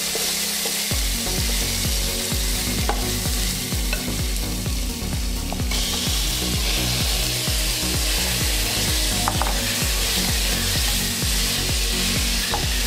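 Food sizzling as it fries in a pan, with a steady hiss and a few sharp clicks.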